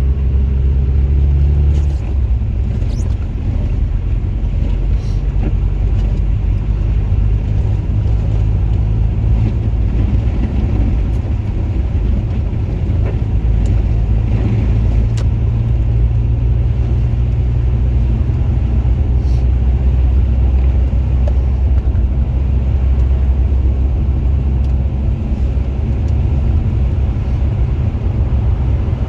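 Car running and driving: a steady low rumble of engine and road noise, with the engine note dropping about two seconds in.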